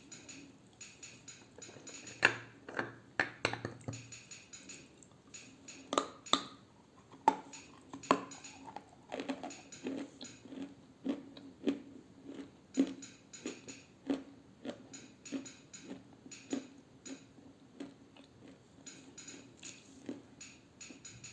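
Dry edible clay being bitten and crunched close to the microphone: a run of sharp cracks in the first eight seconds, then steady chewing at roughly one to two crunches a second.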